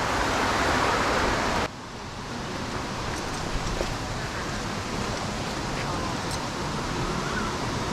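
Steady rushing of a canyon creek, louder for about the first second and a half, then dropping suddenly to a softer rush with a few faint clicks.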